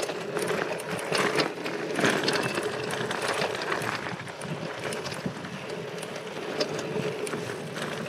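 Mongoose Selous mountain bike being ridden along a dirt track: steady tyre noise with the bike rattling and knocking over small bumps.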